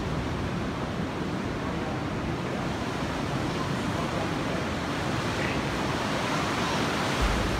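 Steady rush of ocean surf washing onto a sandy beach, with a brief low thud near the end.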